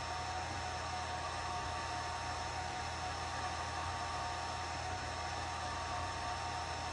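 Atomstack A10 Pro laser engraver running mid-engrave: a steady fan whir with a few steady high whining tones.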